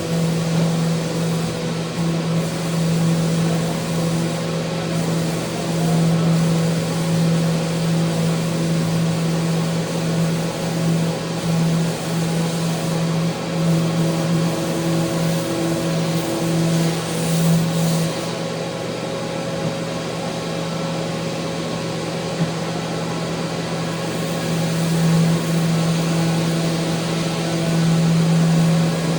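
Electric power sander running steadily against a mounted handrail: a constant motor hum with a sanding hiss that swells and eases as the tool is pressed and moved.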